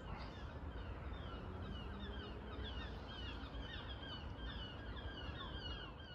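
Small birds chirping: a steady stream of short, high, overlapping calls over a low background rumble.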